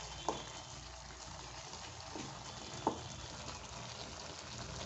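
Thick mixed-dal curry simmering in a pan as it comes to the boil, a steady bubbling with a few short pops, the loudest about three seconds in, while a spatula stirs through it.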